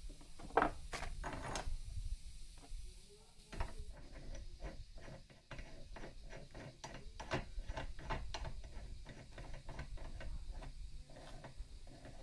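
Metal clicking and ticking as a circular saw blade is seated on a table saw arbor and the arbor nut is spun on by hand, with a few louder knocks about a second in, then a quick run of small clicks, several a second.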